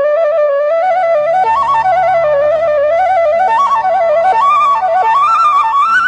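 Instrumental background music: a flute plays an ornamented melody that steps up and down and ends on a higher held note, over a steady low drone.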